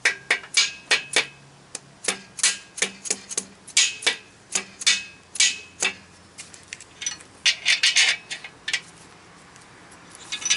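Mallet tapping a main bearing cap down onto a Jeep engine's cast-iron block, seating the cap over the crankshaft journal: a run of sharp knocks at about three a second for some six seconds, followed by lighter, quicker metal clicks.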